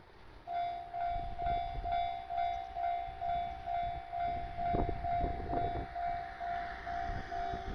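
Japanese railway level-crossing warning alarm starting about half a second in, ringing a steady electronic ding about two and a half times a second. A low rumble runs underneath and grows louder around the middle.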